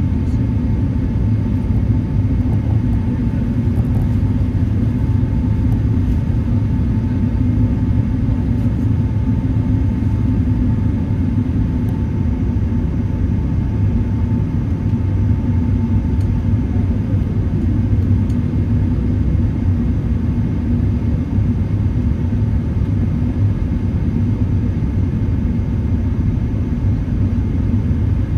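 Steady cabin noise inside an Airbus A380 in the climb after takeoff: a deep, even rumble of engines and airflow heard by the window. A faint steady whine sits above it and fades out about halfway through.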